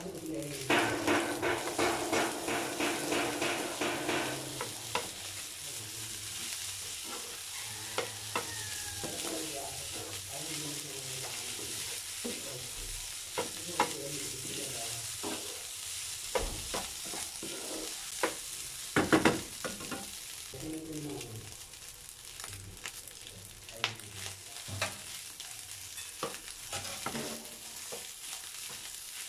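Kimchi fried rice sizzling in a nonstick frying pan as a wooden spatula stirs and scrapes through it. There is a quick run of scraping strokes in the first few seconds and a few louder knocks about two-thirds of the way in.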